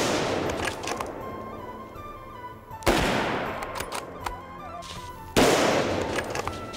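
Hunting rifle shots: a sharp crack right at the start, another about three seconds in and a third about two and a half seconds after that, each rolling away in a long echo.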